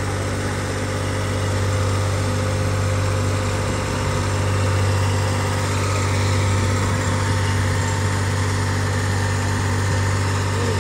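Tractor engine running at a steady speed as it tows a ride wagon, a constant low drone, with wind rushing over the microphone.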